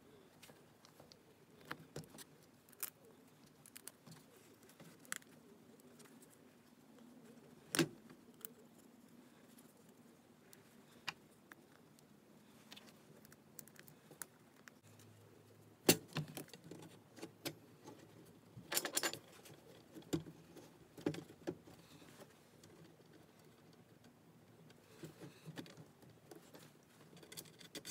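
Scattered clinks, taps and light knocks of metal hardware (bolts, washers and steel brackets) being picked up, handled and set down on a wooden workbench, with a few sharper knocks around the middle.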